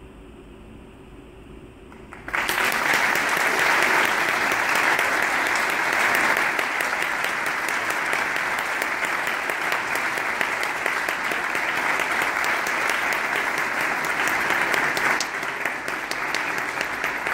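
Audience applauding in a large church hall, breaking out suddenly about two seconds in and easing slightly near the end.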